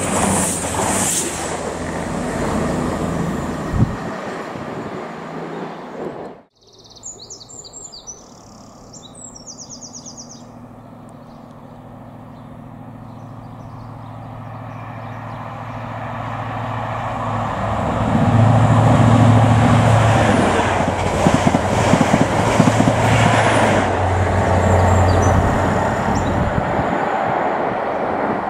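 Diesel passenger trains passing. First a CrossCountry Voyager diesel multiple unit runs through a station platform until a sudden cut about six seconds in. Then, with birds chirping, a High Speed Train's diesel power car grows louder as it approaches, its low, steady engine note loudest in the second half.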